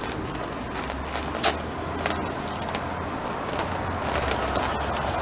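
A few sharp clicks and rustles as a fish shipping box is worked open, over a low steady rumble and outdoor background noise.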